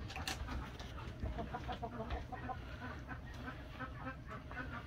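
Several chickens clucking quietly in short, scattered calls.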